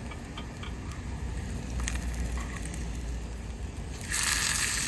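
A few faint handling clicks, then about four seconds in a loud frying sizzle starts suddenly as bologna slices go into the hot pan. A low rumble runs underneath.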